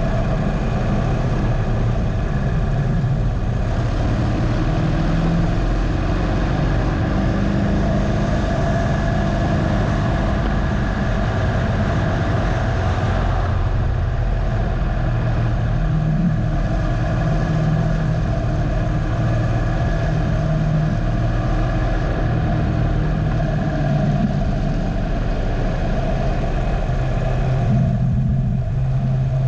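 2015 Harley-Davidson Dyna Low Rider's air-cooled Twin Cam 103 V-twin running hard on track. Its pitch rises and falls several times as the rider works the throttle through corners and a straight, with brief drops about three and a half, thirteen and a half and twenty-eight seconds in.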